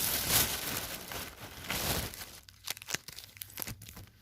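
Crinkling of sealed foil trading-card pack wrappers being handled and sorted in a pile: a dense run of crinkling for the first two and a half seconds, then a few scattered crackles.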